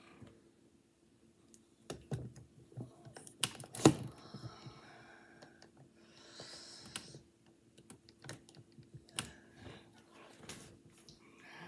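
Scattered clicks and knocks of a smartphone being handled and tapped close to the microphone, with one much louder knock about four seconds in and a brief rustle a couple of seconds later. A faint steady hum sits underneath.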